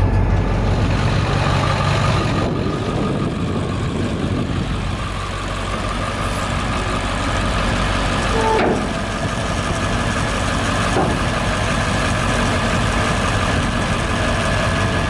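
International 4700 dump truck's diesel engine idling steadily, with a brief clunk about eight and a half seconds in.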